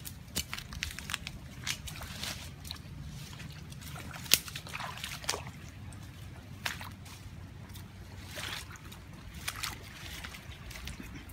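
Water sloshing and splashing in irregular short strokes, with one sharper splash about four seconds in, over a steady low rumble.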